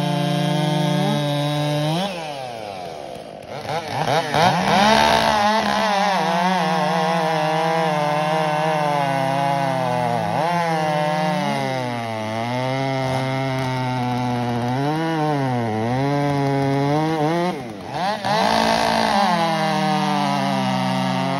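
Two chainsaws running flat out together, bucking rounds off a log: the engine notes sag as the chains bite into the wood and climb again as the cuts free. The level drops for a moment about two seconds in and again near the end, before both saws rev back up.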